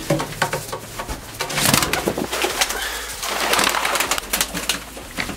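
Young racing pigeons in a small loft being shooed out: cooing, with scuffling and two bursts of wing flapping about two and four seconds in.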